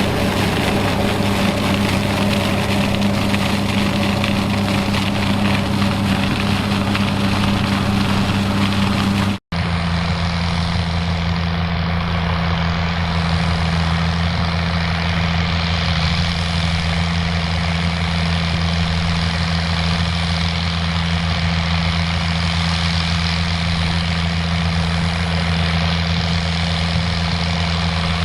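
Fiat 110-90DT tractor's diesel engine running steadily. There is a brief cut about nine seconds in, after which the engine note is a little lower.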